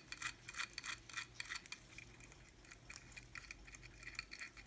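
Rapid, light ticking of a running Ingraham Biltmore pin-lever pocket watch movement, with a faint steady low hum behind it.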